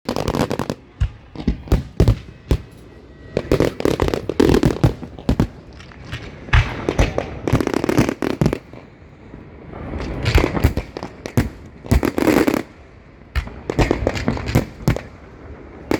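Fireworks going off: many sharp bangs, some in quick clusters, mixed with stretches of crackling.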